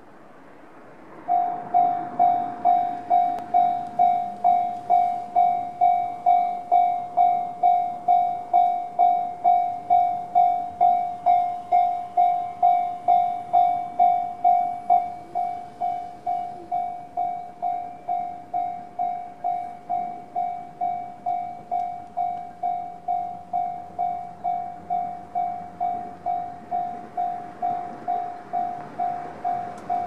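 Electronic warning bell of a JR level crossing sounding the standard JR alarm tone. It starts about a second in and repeats one steady pitched strike about twice a second. About halfway through, the ringing steps down to a noticeably quieter level once the barriers are down.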